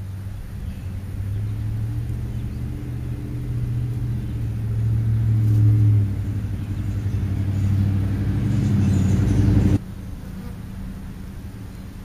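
A low, steady droning hum that grows louder over several seconds and then stops abruptly about ten seconds in.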